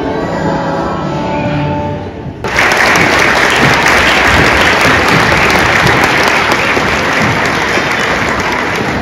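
Music with steady held notes stops abruptly about two and a half seconds in, and an audience applauds loudly for the rest of the time, easing slightly near the end.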